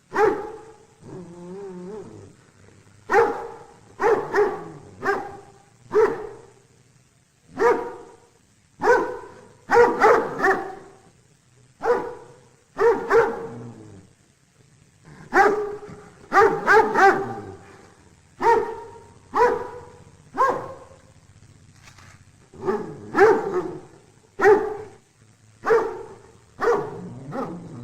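A dog barking over and over, single barks mixed with quick runs of two or three.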